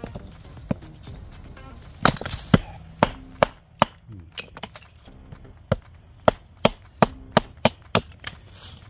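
A knife blade chopping into wood: a quick run of sharp strikes, two to three a second, starting about two seconds in, the first few the loudest.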